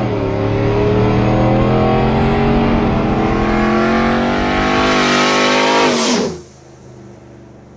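Ram pickup truck accelerating toward and past the camera, its engine note climbing slowly in pitch. About six seconds in the pitch dips as it goes by and the sound falls away sharply.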